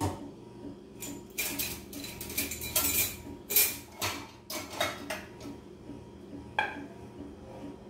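Metal pots and a spoon clinking and scraping as leftover cooked beans are scooped out of a black pot into a smaller red pot: a string of irregular clinks and scrapes, the loudest about three and a half seconds in.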